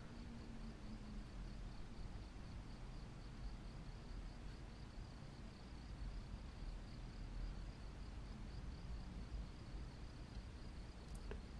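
Faint room tone: a low hum with a steady, rapidly pulsing high-pitched tone over it, and a single small click near the end.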